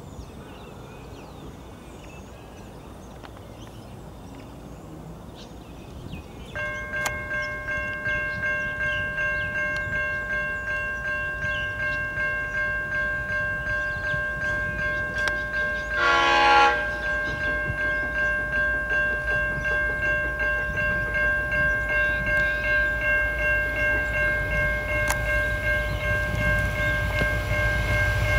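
Heritage train approaching. A steady ringing with a pulsing beat starts about six seconds in and carries on. The leading Victorian Railways C class diesel locomotive sounds one short horn blast about sixteen seconds in, and the low rumble of the train grows louder near the end.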